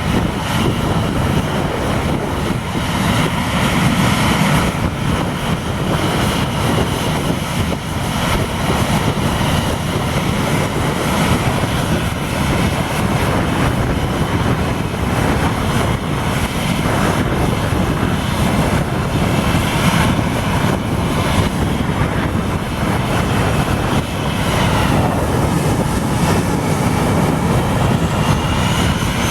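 Airliner engines at takeoff power: a loud, steady roar with faint whining tones that bend in pitch about three-quarters of the way through as the aircraft passes.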